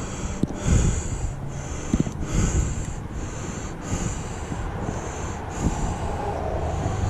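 Manual window regulator being cranked, giving a repeated hissing scrape about every two-thirds of a second as the glass is wound up, with a few light knocks.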